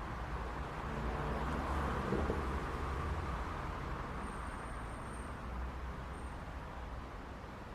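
City street traffic: a steady rumble of road noise, with one vehicle passing and swelling loudest about two seconds in before fading.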